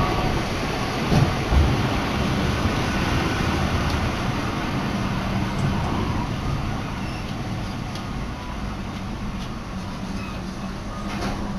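Sapporo streetcar running, heard from inside the car: a steady rumble of wheels on rail and running gear, with a couple of knocks a little over a second in, easing off slightly toward the end.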